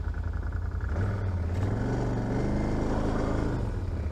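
ATV engine running at low revs, picking up a little about a second in with small rises and falls in pitch.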